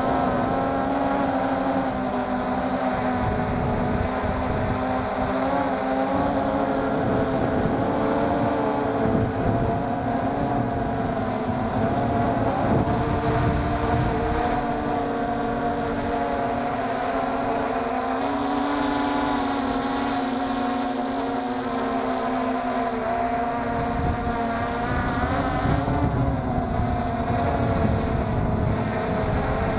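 MJX Bugs 3 quadcopter's brushless motors and propellers buzzing continuously in flight, heard from a camera on board the drone, the pitch wavering up and down as the throttle changes. Wind rushes over the microphone underneath.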